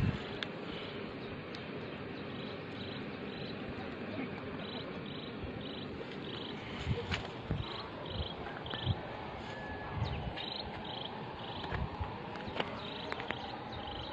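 Insects chirping in short high bursts, repeated in little groups, over a steady hum, with a few faint knocks.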